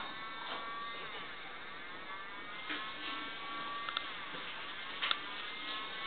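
Fan siren sounding a fast wail: a stack of tones whose pitch repeatedly slides down and back up. There are two sharp clicks near the end.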